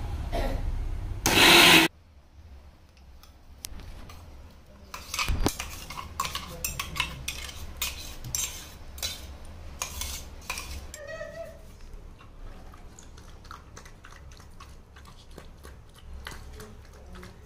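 Electric mixer grinder running, ending with a loud surge before it is switched off about two seconds in. Then a spoon repeatedly scrapes and clinks against a stainless steel grinder jar and steel bowl as mashed food is scooped out, with lighter clinks afterwards.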